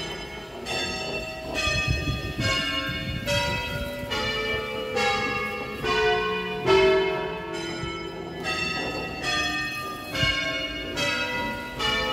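A ring of nine bronze church bells in E, rung by hand on ropes in the Veronese system. The bells strike one after another about every two-thirds of a second, each ringing on under the next.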